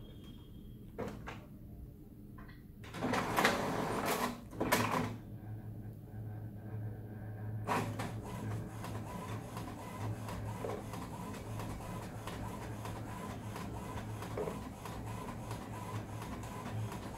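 All-in-one printer-scanner making a photocopy: a couple of light clicks as the lid goes down, then two loud bursts of clattering from the mechanism about three seconds in. From about eight seconds it settles into a steady motor whir with faint regular ticks as the copy runs.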